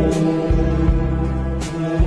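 Slow meditation music: sustained pitched tones over a low drone, with soft strikes that ring on briefly.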